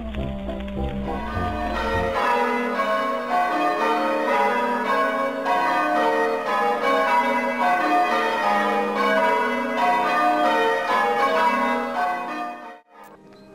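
Church tower bells ringing, many bells sounding one after another in a continuous peal; it cuts off abruptly near the end.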